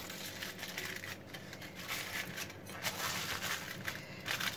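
Aluminium foil crinkling and rustling as hands press and smooth it down around the rim of a paper cup, in irregular short crackles.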